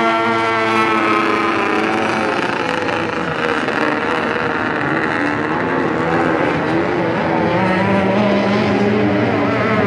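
Engines of several racing boats running at full speed across the river. One engine's pitch drops over the first couple of seconds as the boats pass, then several engines blend into a rough, steady noise, and another engine's tone comes up clearly near the end.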